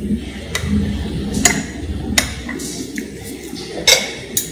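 Metal spoon and fork clinking against ceramic plates and bowls: several sharp clinks, the loudest about a second and a half in and again near the end.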